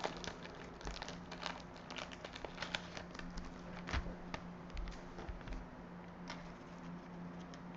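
Faint handling noise of a trading card and its holder being set down on a tabletop: scattered soft clicks and rustles, one sharper tap about four seconds in, over a low steady hum.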